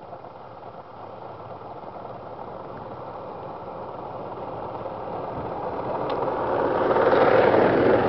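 Rail truck running on the track, its engine and wheel noise growing steadily louder, most of all over the last three seconds.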